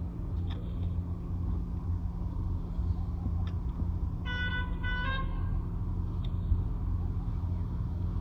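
A vehicle horn toots briefly about four seconds in, in two short parts, the second slightly higher, over a steady low rumble.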